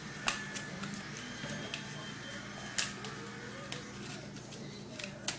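Paper and tape being handled by hand: scattered crinkles and sharp clicks, three louder ones about half a second in, near the middle and near the end, over a steady low hum.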